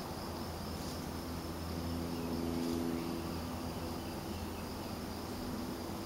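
Outdoor summer ambience: an insect trilling steadily at a high pitch, over a low steady hum that grows a little louder two to three seconds in.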